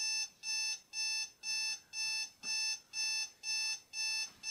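Digital bedside alarm clock's buzzer going off: a steady, evenly repeated beeping, about two beeps a second, each beep one buzzy tone.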